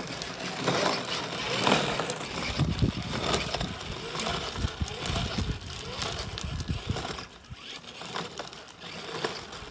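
Hard plastic wheels of a child's ride-on toy motorbike rolling and rattling over a rough concrete lane, an uneven clatter that grows fainter after about seven seconds as it moves away.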